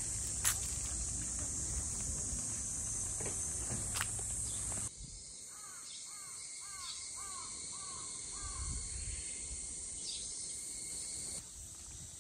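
Outdoor summer ambience: insects droning steadily at a high pitch throughout. About five seconds in, a bird gives a quick run of about seven short calls, each rising then falling.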